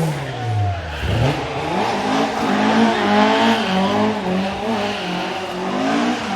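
Rally car engine under hard driving: the revs fall sharply, pick up again about a second in, then rise and dip over and over as it pulls away.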